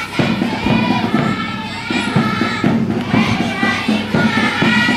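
A large group of children singing together as they march in procession, many voices overlapping.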